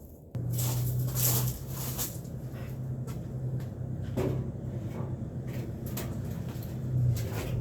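Scattered knocks and clunks of metal and wood being handled, consistent with a length of angle iron being clamped onto a pine slab, over a steady low hum that starts suddenly just after the beginning.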